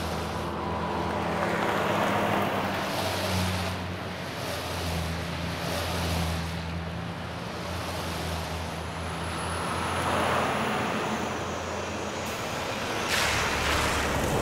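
Highway traffic: cars and trucks driving past one after another, the tyre and engine noise swelling as each vehicle goes by, over a steady low hum.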